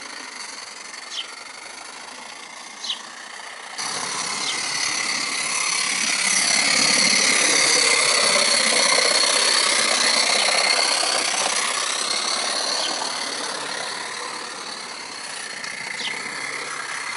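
Coal-fired vertical-boiler model steam locomotive running on its track, a steady mechanical running sound with a high whine. It grows louder as the engine passes close by about halfway through, then fades as it runs on.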